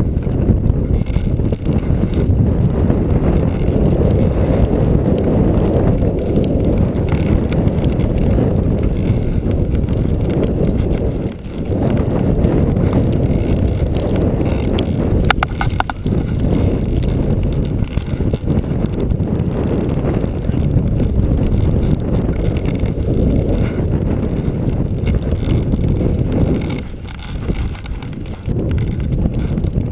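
Wind buffeting the microphone: a loud, gusty low rumble that drops off briefly about eleven seconds in and eases near the end.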